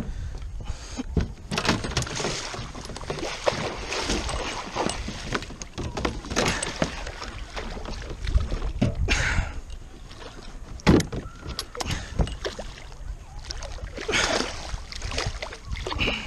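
Hooked musky splashing and thrashing at the surface beside a kayak in repeated bursts, with a few sharp knocks mixed in.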